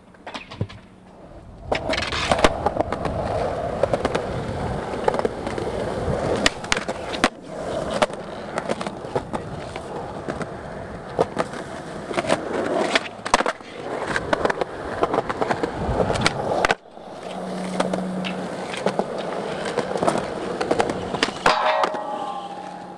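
Skateboard wheels rolling on concrete, with sharp clacks of the board hitting the ground. The rolling breaks off suddenly about 17 seconds in and starts again moments later.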